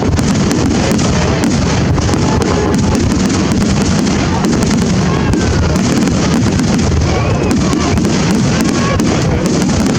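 Large fireworks display going off in a dense, continuous barrage of bangs and crackles, with short whistles gliding in pitch in the second half.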